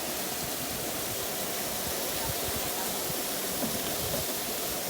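Steady rush of a mountain river or waterfall, an even hiss of falling water.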